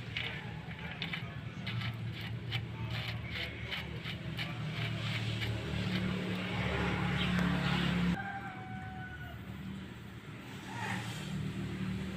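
A vehicle engine running steadily with a low hum, with light clicks over the first few seconds; the sound changes abruptly about eight seconds in.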